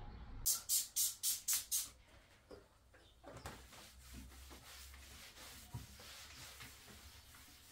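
Six quick squirts from a trigger spray bottle of cleaner, about four a second, followed by a cloth rubbing over a table top.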